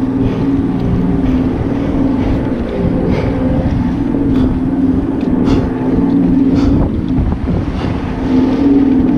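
Charter boat's engine running steadily with a low, slightly wavering hum, with wind buffeting the microphone and a few brief knocks.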